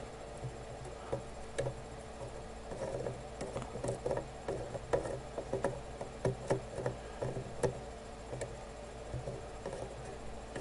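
Scattered light clicks and taps from small hand tools being handled at a soldering bench, irregular and about one every half second to second, over a faint steady hum.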